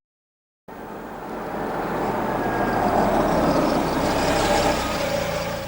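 A car driving slowly, engine and tyre noise starting under a second in, building up to a peak and then easing off.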